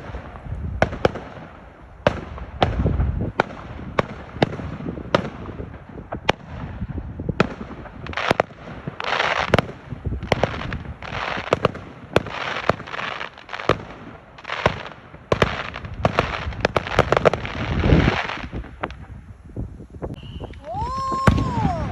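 Fireworks going off: a quick string of sharp bangs, with long spells of dense crackling through the middle.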